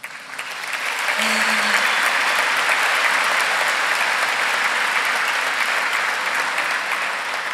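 Audience applauding: the clapping builds over the first second, holds steady, then eases slightly near the end.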